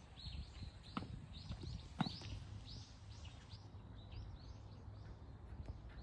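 Footsteps of a person walking on a park path, with rapid high chirping repeating several times a second that fades after about three and a half seconds, and two sharp clicks about one and two seconds in.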